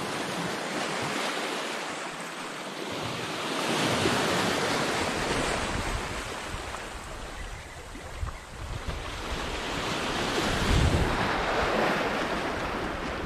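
Small waves breaking and washing over pebbles and rocks at the water's edge, swelling twice and drawing back. Wind buffets the microphone from a few seconds in.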